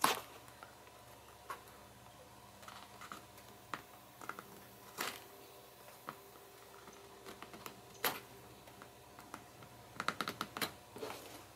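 X-Acto knife blade scraping dried binding glue off the paper spine of a paperback book: faint scattered clicks and scrapes, with a quick run of them about ten seconds in.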